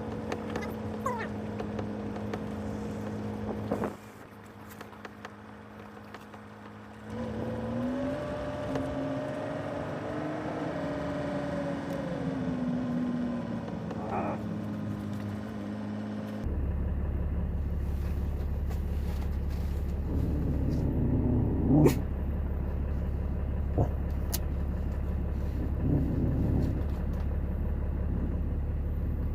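Ram 3500 pickup driving, heard from inside the cab: steady engine hum and road noise. The engine note rises and then falls in the middle, and later a heavier, steady low rumble takes over, with a few light clicks.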